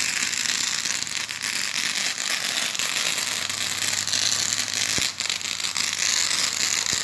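Consumer fireworks crackling: a dense run of small rapid pops and fizzing, with two sharper cracks about five and seven seconds in.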